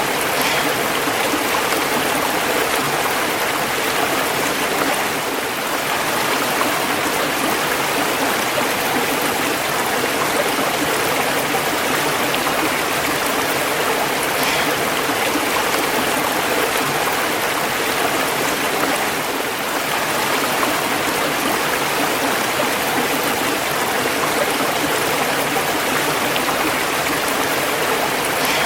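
Running water cascading over a waterfall: a steady, even rush with no breaks or changes.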